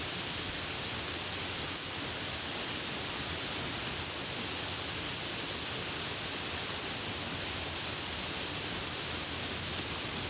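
Steady downpour of rain: a dense, even hiss with no thunder and no single drops standing out.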